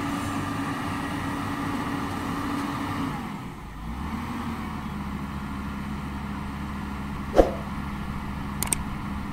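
Hyundai wheeled excavator's diesel engine running steadily; about three and a half seconds in its note drops and a deeper rumble takes over. A single sharp knock comes about seven seconds in, and a few short clicks near the end.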